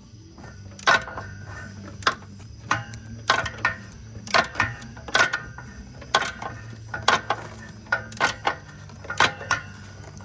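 Socket ratchet tightening transmission bracket bolts, giving a short burst of clicks about once a second as each stroke is swung back.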